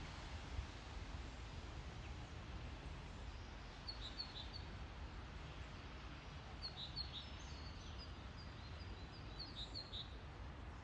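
Faint, short, high bird chirps in small clusters, over a steady low background rumble outdoors.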